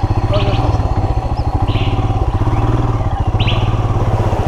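Royal Enfield Himalayan's 411 cc single-cylinder engine running at low revs, its exhaust beats steady and even. A bird chirps several times over it.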